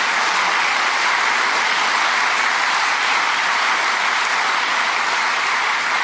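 Audience applauding, a dense and steady clapping that holds at an even level.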